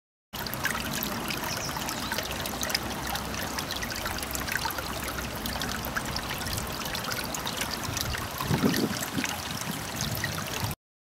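Shallow rocky stream trickling and babbling over stones: a steady wash of water with many small splashes, and a brief louder low swell about eight and a half seconds in. It begins and cuts off abruptly.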